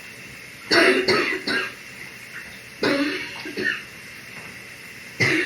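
A person's morning cough: a run of three coughs about a second in, two or three more around three seconds in, and another starting near the end, over a steady hiss.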